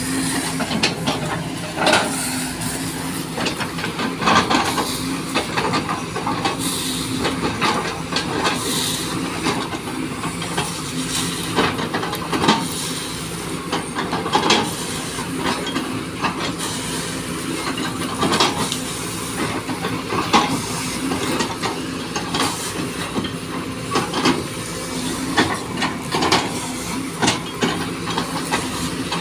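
SANY SY215C crawler excavator's diesel engine running steadily under load, with irregular sharp cracks, snaps and knocks as its bucket pushes over and breaks up oil palm trunks and fronds.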